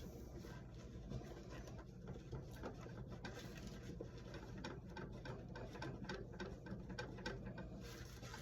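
Faint, irregular small clicks and scrapes of hand work on a wall light switch's terminal screws and wires, over a low steady hum.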